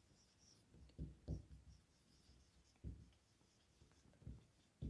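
Marker pen writing on a whiteboard: about five short, faint strokes and taps as a word is written.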